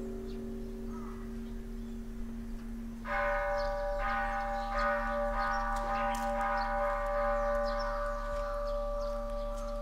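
Bells ringing: a low bell tone hums on from an earlier strike, and about three seconds in a higher-pitched bell is struck and rings on with a long, slow decay.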